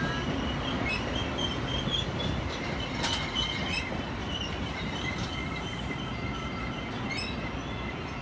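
Metra stainless-steel bilevel commuter cars passing at speed: a steady rumble of steel wheels on rail with a thin, wavering high squeal above it. A sharp click comes about three seconds in and again near the end.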